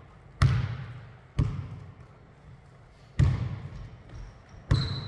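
Basketball bouncing on a hardwood gym floor: four separate bounces, irregularly spaced, each ringing out in the echoing hall. A short high squeak comes near the end.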